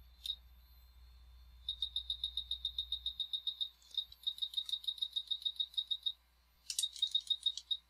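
Rapid high-pitched electronic beeps, about nine a second, coming in three runs separated by short pauses, typical of a hot air rework station's beeper as its temperature or airflow setting is stepped.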